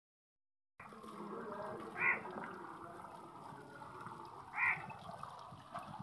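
Water running and splashing from a garden hose onto wet brick paving, a steady wash of noise. Twice, about two and a half seconds apart, a short high pitched call cuts through it.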